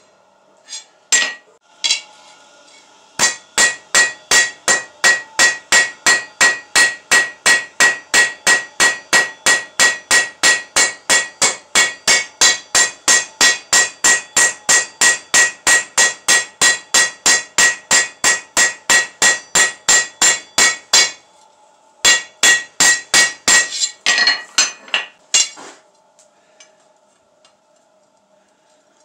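Hand hammer beating a red-hot bar on a steel anvil: a few single blows, then a long, even run of about three blows a second, each with a ringing ping from the anvil. After a short break there is a second, briefer run, and then the hammering stops near the end.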